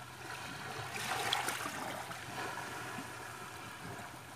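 Water splashing and lapping around a small wooden boat on the sea, under a faint steady hum.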